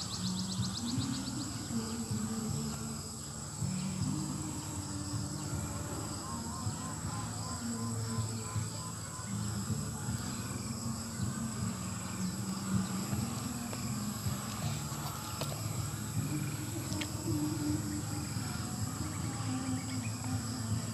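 Insects, crickets or cicadas, making a steady high-pitched drone, with a short rapid ticking trill at the start.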